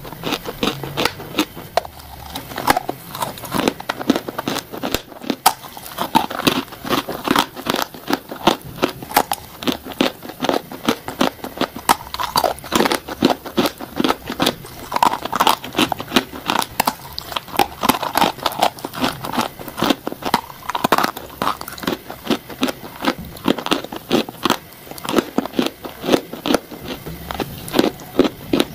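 Close-miked crunchy bites into dry, crumbly clay-like blocks: rapid sharp crunches with crackling and crumbling, several a second.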